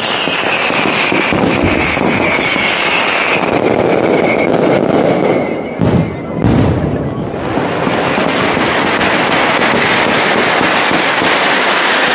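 Dense barrage of fireworks: continuous crackling and bangs, with falling whistles fading out over the first few seconds and two heavy booms about six seconds in.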